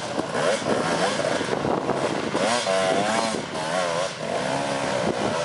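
Several enduro dirt bikes' engines running, revving up and down in quick wavers as the riders come down a rutted dirt slope.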